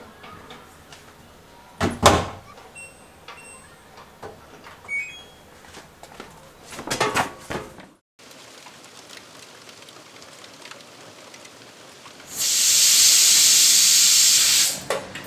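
Front-loading washing machine being loaded: a heavy thud about two seconds in, a few short beeps, then a cluster of knocks. Near the end, a stainless steel pressure cooker on a gas hob vents steam with a loud, steady hiss.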